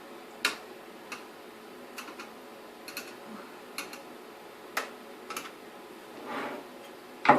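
Light, irregular clicks and taps of a screwdriver working the screws out of the metal top cover of a BMW E46 sat-nav unit. A short scraping rustle comes about six seconds in, and a louder clack near the end.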